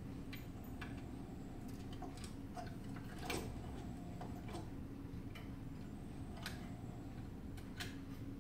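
Irregular small clicks and taps of hands handling parts and wiring inside the open housing of a medical resuscitator, the sharpest about three seconds in, over a steady low hum.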